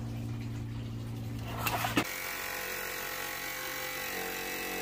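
Steady whirring of a cordless power cutter slicing through a van's sheet-metal side panel, starting with a click about two seconds in after a low steady hum.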